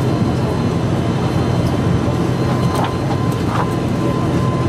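Steady drone inside the cabin of an ATR 72-500 turboprop on the ground: a low hum with a thin, even whine above it.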